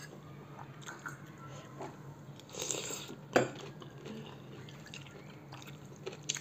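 Close-up eating sounds: a slurp of soupy noodles about two and a half seconds in, followed at once by a sharp clink of a metal spoon, the loudest sound. Soft chewing and small spoon clicks against the bowl come before and after.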